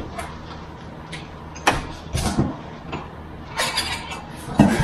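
3D printer kit parts being unpacked and handled on a table: several short rustles and knocks from parts bags and the box, over a steady low hum.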